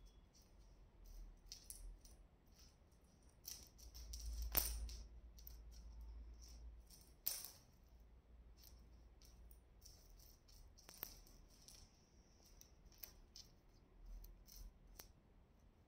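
A necklace jingling and clicking on a marble floor as a kitten bats and drags it: scattered light taps and rattles, the sharpest about four and a half and seven seconds in.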